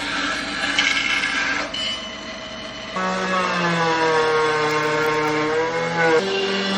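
Electric woodworking power tools running. From about three seconds in, a motor whine with strong overtones sags slightly in pitch, then jumps back up just after six seconds.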